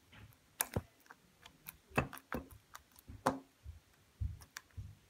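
Sticky green slime being squeezed and stretched by hand, giving an uneven string of wet clicks and pops with soft low squelches between them.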